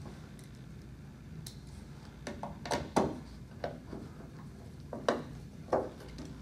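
Phillips screwdriver driving a casing screw into a media player, making several irregular small clicks and taps.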